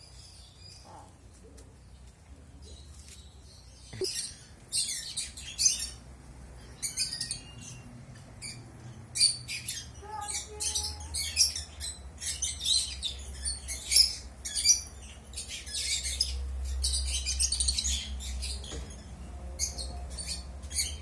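Many birds chirping and calling in quick, shrill bursts, starting about four seconds in and going on almost without a break, over a low rumble.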